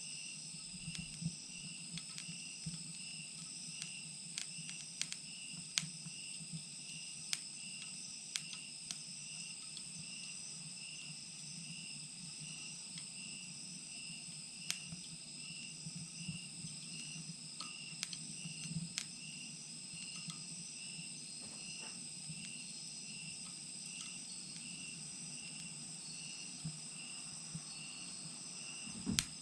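Wood fire burning in a clay chimenea, crackling with scattered sharp pops and a louder pop near the end. Behind it, insects chirp steadily, one pulsing about twice a second.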